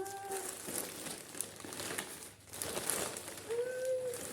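Packaging crinkling and rustling as a newly delivered item is handled and unwrapped, with a couple of brief pitched hums or coos.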